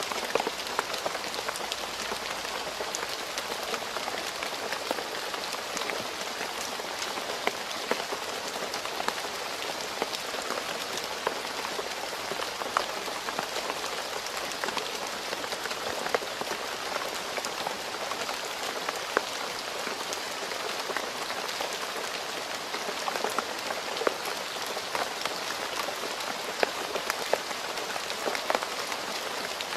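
Steady rain falling on a road surface, a constant hiss with many individual drops pattering and splashing sharply.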